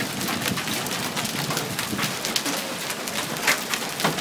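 Hailstorm: a dense, steady clatter of hailstones striking hard surfaces, many small sharp impacts with a few louder hits standing out.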